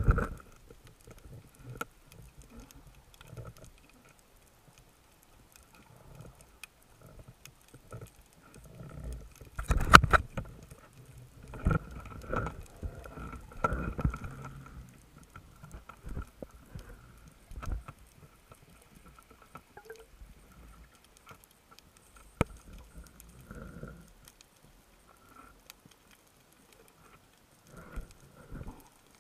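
Underwater handling noise heard through a camera housing on a spearfishing dive: irregular muffled knocks and rustles, loudest in a cluster from about ten to fifteen seconds in, over a faint steady whine. A loud burst comes right at the start as the camera goes under the surface.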